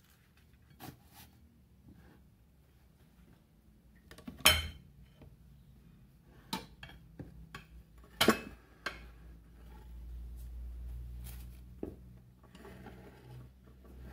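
Kitchen dishes and utensils clattering: a spatula and ceramic plates knock and clink in a handful of separate strikes, the two loudest about a third of the way in and just past the middle. A low hum runs for a few seconds after the middle.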